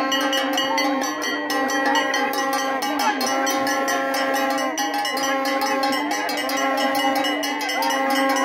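Metal bells rung rapidly and without a break, their ringing tones held steady, over a crowd's shouting voices.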